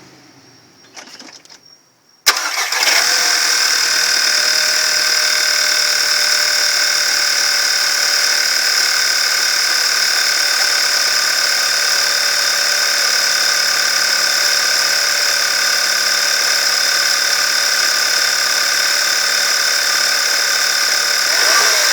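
Audi TT 1.8 TFSI (CDAA) turbocharged four-cylinder engine cold-starting: a short crank about two seconds in, catching at once and settling into a steady, even fast idle with a constant high whine. The owner wonders whether the noise at cold start points to a timing chain problem.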